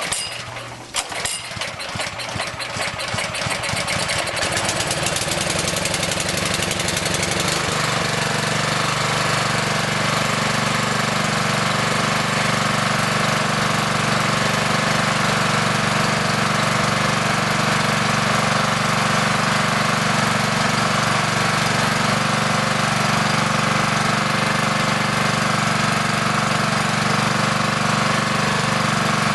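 Honda GX200 single-cylinder engine on a pressure washer starting: a few sharp knocks as it fires in the first second, then it picks up speed over several seconds and settles into a steady run.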